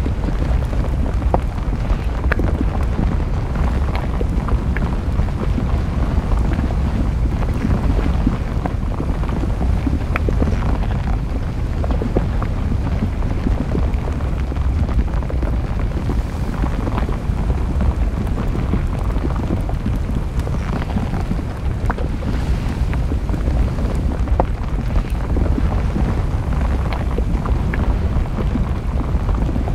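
Volcanic eruption's deep, steady rumble with many small crackles and pops scattered through it, mixed with wind on the microphone.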